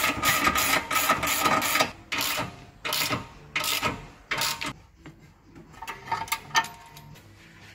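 Hand socket ratchet on an extension clicking as it turns a front suspension bolt: a fast run of ratcheting for about two seconds, then four separate strokes, then a few light clicks near the end.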